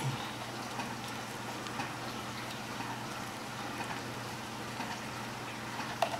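Steady background hiss with a low hum, with faint light ticks of shredded mozzarella being sprinkled by hand onto a tortilla.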